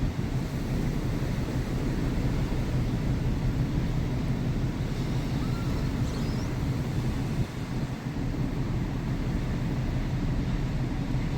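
Truck driving, heard from inside the cab: a steady low engine and road drone.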